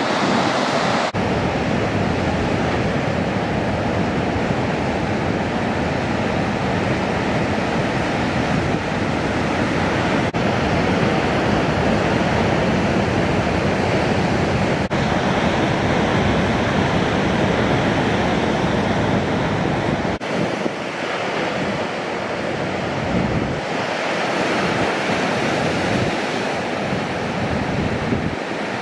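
Ocean surf: waves breaking and whitewater rushing, a steady loud wash of noise with wind buffeting the microphone. The sound changes suddenly a few times.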